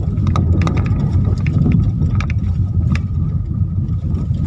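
Car driving over a rough, stony dirt track, heard from inside the cabin: a steady low rumble of engine and tyres with scattered sharp knocks and rattles.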